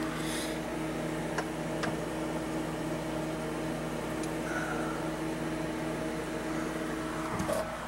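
Steady mechanical hum of a running machine, with two faint clicks about one and a half and two seconds in.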